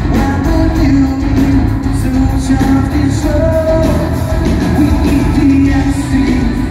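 Live rock band playing loud, with electric guitar under a male lead singer holding long sung notes, heard from within the crowd.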